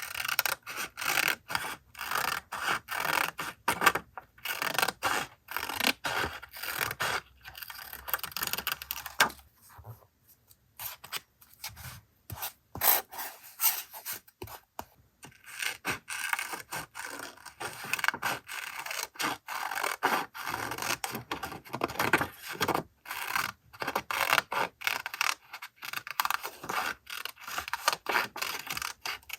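Paper being rubbed and scraped by hand in quick, irregular strokes, with short pauses and a quieter lull about ten seconds in, as in pressing and smoothing collage pieces down onto a journal page.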